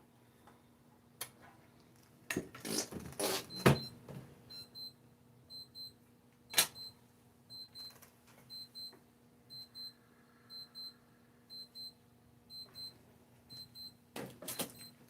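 A few knocks and a clatter of handling, then a digital alarm clock beeping: high beeps in pairs, about one pair a second, starting about four and a half seconds in and going on steadily.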